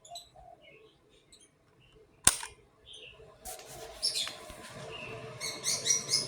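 Small birds chirping, with a single sharp click a little over two seconds in. From about three and a half seconds a steady hum sets in under further chirping.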